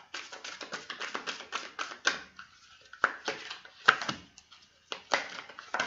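A deck of tarot cards being shuffled and handled by hand: a quick run of light card flicks and taps, broken by several sharper slaps.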